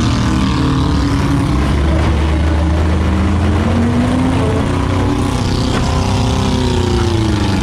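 Several demolition derby cars' engines running and revving at once, their pitches rising and falling over a steady low rumble.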